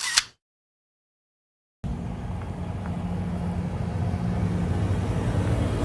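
A short, sharp burst right at the start, then dead silence, then from about two seconds in the steady low rumble and hum of a moving vehicle, growing slightly louder.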